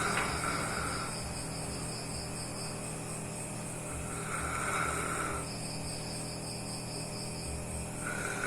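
Dog snoring in its sleep, with one snoring breath about every four seconds: three in all. Between the snores a high, rapid pulsing sound comes and goes.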